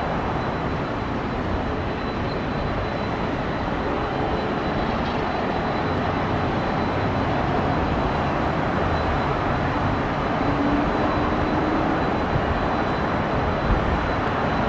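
Jet airliner engines running: a steady roar that grows slightly louder.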